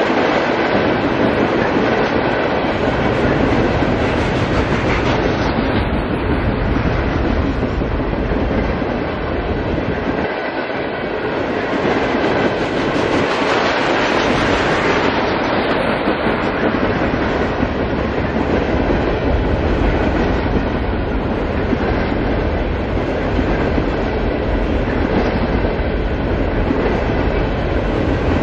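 Freight cars of a long CSX freight train rolling past close by: a continuous rumble and rattle of steel wheels on the rails, with clickety-clack over the rail joints.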